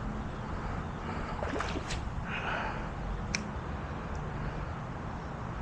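Steady outdoor wind noise rumbling on the microphone, with a few short, sharp clicks around one and a half, two, and three and a half seconds in.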